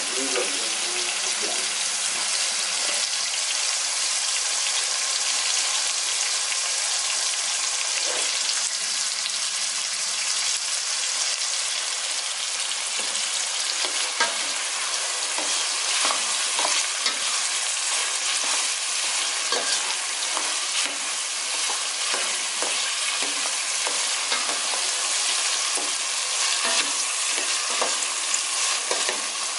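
Tomato wedges sautéing in oil in an aluminium pot: a steady sizzle, with a metal ladle stirring and clicking against the pot now and then.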